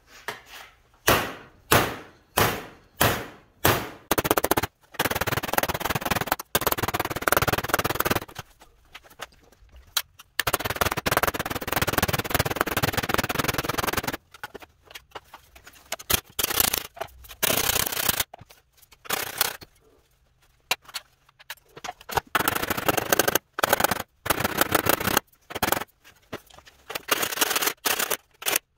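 Ball-peen hammer beating a sheet-steel floor panel on a sandbag, dishing a recess around a body mount hole so the mount washer sits flush. It starts with separate ringing blows about two a second, then runs into long stretches of rapid hammering with short pauses between them.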